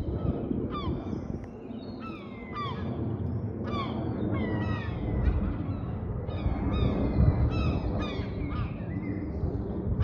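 A flock of beach birds calling: many short, downward-sliding cries overlapping in quick succession, over a steady low rumble.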